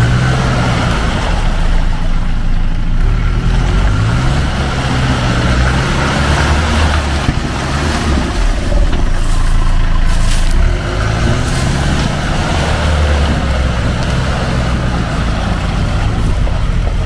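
A UAZ off-roader's engine revving up and down under heavy load while its 36-inch tractor tyres churn in deep mud and water, the vehicle bogged in the swamp.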